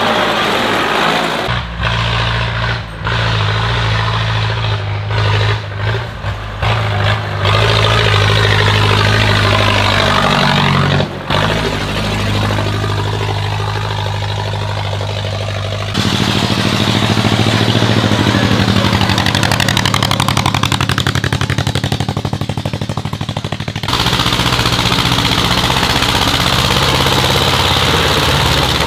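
Tractor engines running hard in a hill-climb race, in several shots spliced together, the engine note changing sharply at each cut. In the middle section the engine has a fast, even firing beat.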